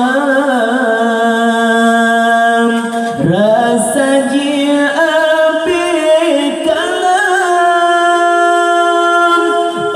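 Nasyid vocal group singing in harmony, drawing out long held notes with melodic turns between lines of the song; the voices swoop down and back up about three seconds in and change note a couple of times after.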